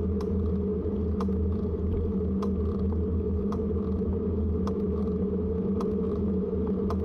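Steady rumble of a bicycle rolling on the road, heard through a camera mounted on the bike, with a light tick about once a second.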